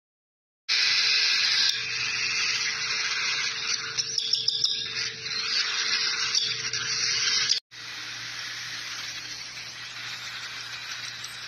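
A group of cockatiel chicks begging together: a dense, raspy hissing chorus that starts under a second in and drops suddenly to a quieter level about eight seconds in.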